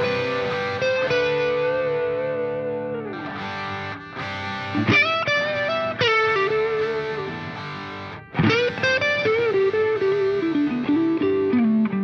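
Background music: a distorted electric guitar playing a lead line of held notes, with bends and slides in pitch.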